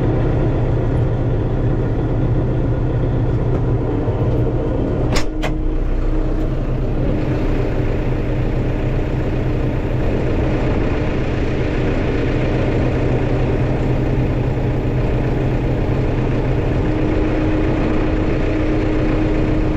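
Armatrac 1104 Lux tractor's diesel engine running steadily under working load while spraying, with two short clicks about five seconds in.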